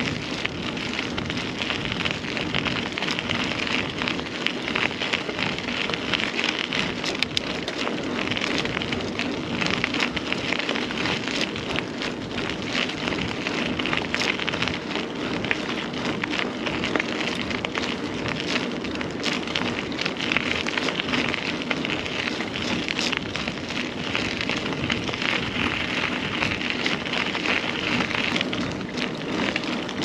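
Carrera Hellcat mountain bike's tyres rolling over a rough trail surface: a steady crackling hiss peppered with small clicks and rattles.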